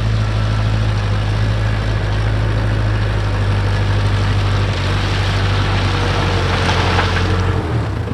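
Case 580K backhoe's four-cylinder diesel engine running steadily, its low tone shifting slightly a little past halfway and again just before the end.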